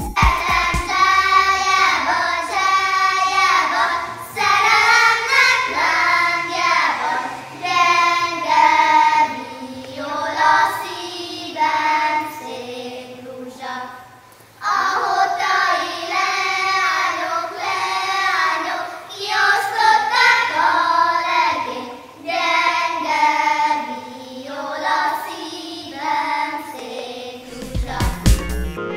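A group of young girls singing a Hungarian folk song together, with a short break about halfway through before the singing goes on.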